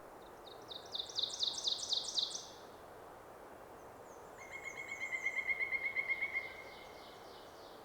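Songbirds singing twice in turn. First comes a quick run of high, down-slurred notes lasting about two seconds. About four seconds in, an even, rapid trill follows with higher notes over it.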